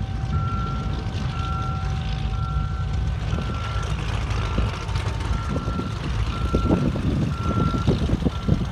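A vehicle's reversing beeper sounds about once a second over the low steady rumble of a distant twin-engine propeller bomber on its take-off run. Wind buffets the microphone in the second half.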